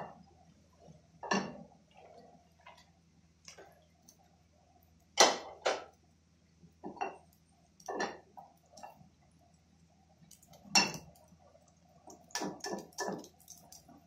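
Kitchen clatter at a gas stove: a dozen or so sharp, irregular clicks and knocks of pans and utensils, loudest about five and eleven seconds in, with a quick cluster near the end, over a faint steady hum.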